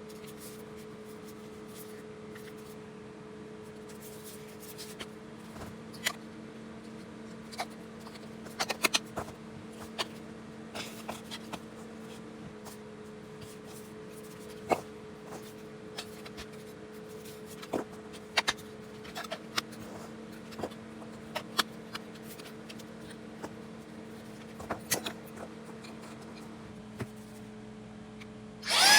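Scattered light clicks and taps of objects being handled, over a steady low hum. Right at the end the motor of a cordless handheld vacuum cleaner switches on with a loud rising whine.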